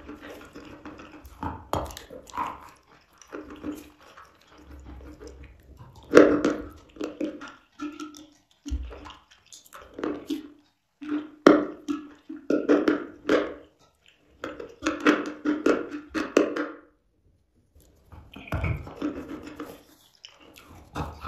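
Close-miked biting and chewing of a dry chunk of white chalk: crumbly crunches in irregular bursts with short pauses, and a brief quiet spell near the end.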